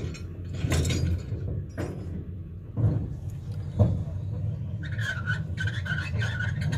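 Metal clanks and knocks from handling the hardware at the front of a wooden flatbed trailer, over a steady low hum. About five seconds in, a quick run of high, squeaky clicks starts.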